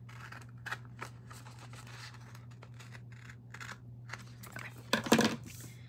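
Scissors cutting paper: a few scattered faint snips, then a quicker run of louder snips about five seconds in.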